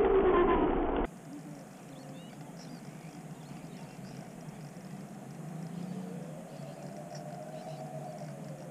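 Bixler 3 RC plane's electric motor and propeller whining loudly through the onboard camera's audio, the pitch falling, then cut off about a second in. What follows is much quieter, with the same plane's motor heard faintly from the ground in the second half, its whine rising and then falling in pitch as it passes.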